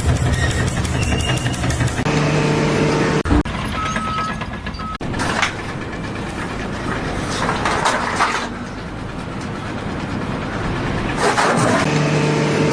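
Engines running, with the sound changing abruptly several times.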